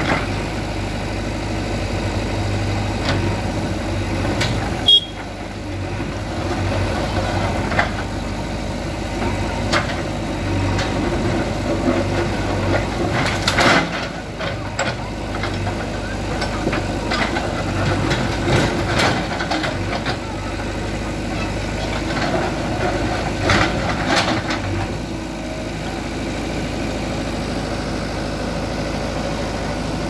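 JCB 3DX backhoe loader's diesel engine running steadily while its backhoe arm pushes down a brick wall. Bricks and rubble crack and clatter down several times, loudest about halfway through.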